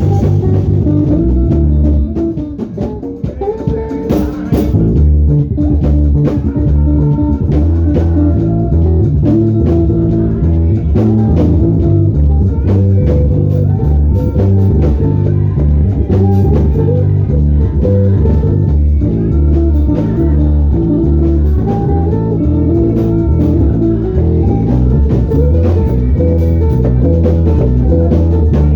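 Instrumental band music with a prominent bass guitar line over a drum kit and guitar. It thins out briefly about two to four seconds in, then carries on steadily.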